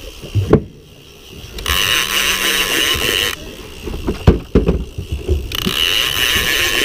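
Large conventional big-game fishing reel being cranked to wind in line, giving a high whirring buzz in two bursts of about a second and a half each, with pauses between them. A few sharp knocks fall in the pauses, about half a second in and around four seconds in.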